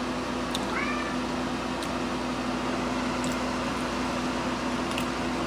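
Beef jerky dehydrator's fan motor humming steadily, with a short faint meow about a second in.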